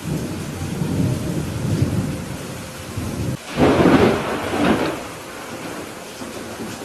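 Steady rain with rolling thunder, and a louder clap of thunder about halfway through that dies away.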